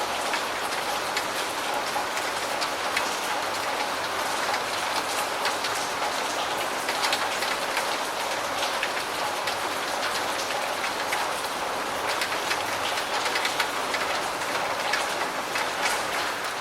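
Steady rain falling, a dense even hiss with many separate drop hits.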